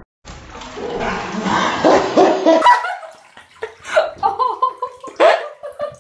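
Icy bathwater splashing as a head comes up out of it, with gasping. From about three seconds in come a string of short, sharp yelps and cries at the cold.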